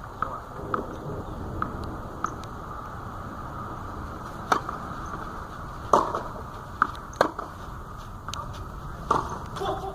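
Tennis rally: a ball struck back and forth by rackets, heard as a run of sharp pops about a second or so apart in the second half.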